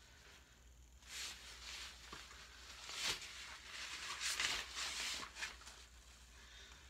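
Fabric rustling and the odd click of the frame as a playard's newborn bassinet insert is handled and lowered into place, loudest in the middle with a sharp knock about three seconds in.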